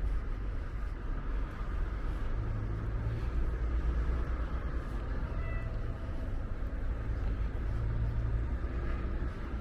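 Outdoor city ambience: a steady low rumble of distant traffic with wind on the microphone. A brief faint high tone sounds about five and a half seconds in.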